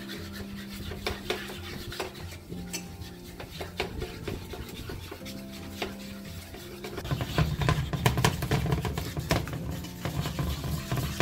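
A pasta spoon scraping and clicking against a nonstick frying pan as raw eggs are stirred and scrambled. Background music plays underneath and gets louder about seven seconds in.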